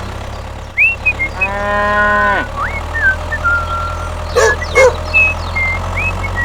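A long moo, about a second in, that holds its pitch and then drops at the end, followed by short high chirps and two sharp clicks. Under it runs the steady low hum of a small engine.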